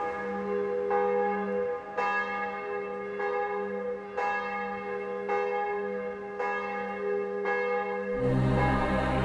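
Church bells tolling, a stroke about once a second, each note ringing on into the next. Near the end, louder music with a deep low part swells in over the bells.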